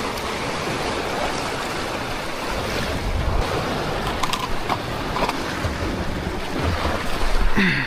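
Ocean surf washing steadily, with wind buffeting the microphone. Near the end there is a short, louder sound that falls in pitch.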